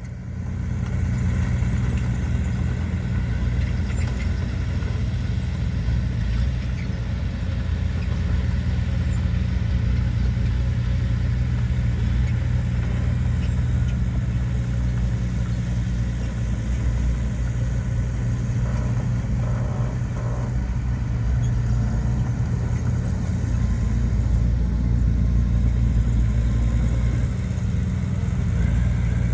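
Diesel engine of heavy earthmoving machinery running steadily with a continuous low drone.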